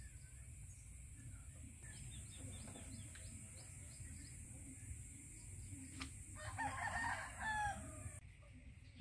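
A rooster crows once, a pitched call about a second and a half long, near the end. Small birds chirp faintly earlier on.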